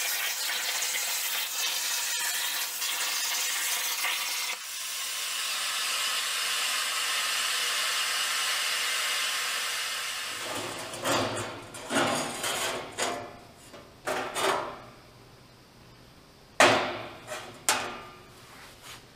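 Plasma cutter hissing steadily as the CNC torch cuts 1/16-inch sheet steel; the sound thins about four and a half seconds in and dies away around ten seconds. Then the thin cut steel sheet rattles and clanks as it is lifted off the table's support slats, with two sharp, loud clanks near the end.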